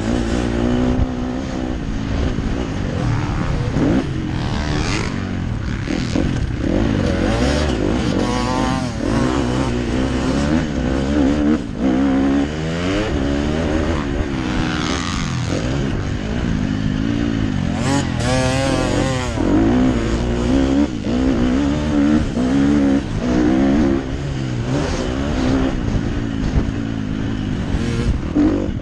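Motocross bike's engine heard from the rider's own helmet camera, revving up and dropping off again and again as it accelerates, shifts gear and backs off along the dirt track, with a few sharp knocks along the way.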